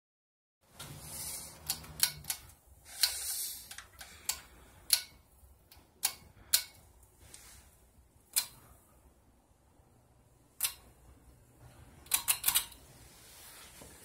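Scattered sharp clicks with short rustles, ending in a quick run of about four clicks near the end, from a ceiling fan's pull-chain switch being worked as the fan is switched on, with a faint low hum underneath.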